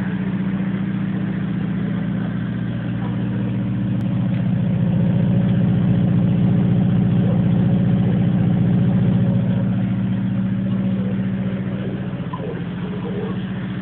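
A car engine idling steadily, heard at the exhaust tailpipe, with an even pitch and no revving. It is louder in the middle stretch, where the exhaust outlet is closest.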